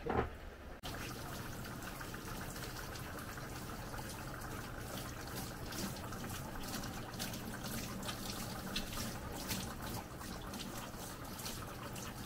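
Handheld shower head spraying water onto a husky's wet coat as it is rinsed in a dog bathing tub. A short thump at the very start, then the steady spray from about a second in.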